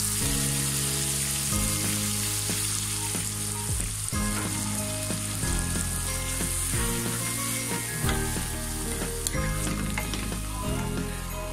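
Onion, tomato and spice masala sizzling in a frying pan with a little water just added, as it is cooked down (kosha), while a wooden spatula stirs it with scattered scraping clicks against the pan.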